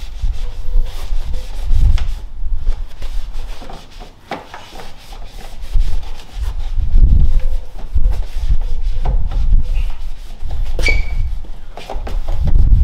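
Cloth rag rubbing and wiping dirt off the bare metal and plastic of a car's front end, in repeated low, scrubbing strokes with scattered light clicks. A single sharp clink near the end.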